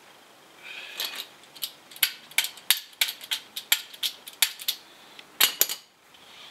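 Sharp metallic clicks and clinks, a dozen or so at an uneven pace, as a socket and extension bar are handled and pushed onto a torque wrench's drive. A louder double click comes shortly before the end.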